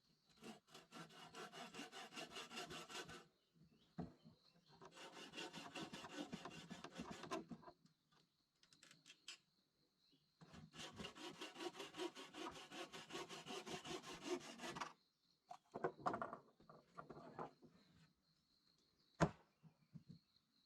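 Wood being sawn by hand in three long bouts of quick, even rasping strokes, with a few light knocks afterwards and one sharp knock near the end.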